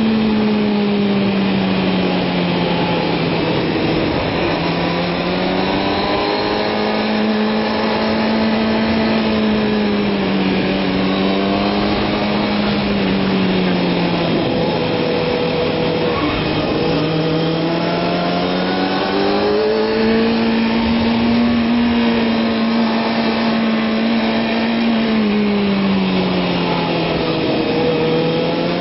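Kawasaki ZX-6R sportbike's inline-four engine held in third gear on track, its pitch falling as the throttle is rolled off into corners and climbing again on the drive out, three times over. A steady rush of wind runs under it.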